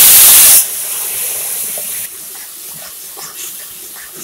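Hot water hitting flour roasted in hot ghee in a kadhai, flashing into a loud hiss of steam that cuts off sharply about half a second in. A softer sizzle dies away over the next second and a half, giving way to a metal spatula stirring and scraping the bubbling halwa in the pan.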